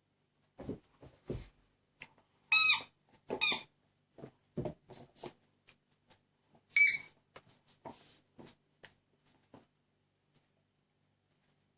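Squeaky dog toy squeezed in a dog's jaws: two loud, short squeaks about two and a half and seven seconds in, and a fainter one just after the first, among soft knocks and chewing sounds.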